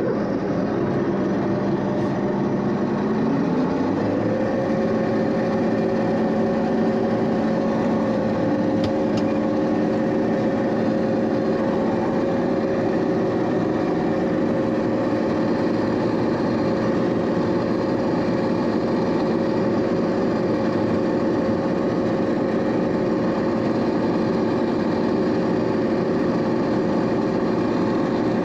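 Combine's diesel engine running. About three seconds in it throttles up, its pitch rising, then it holds a steady higher speed.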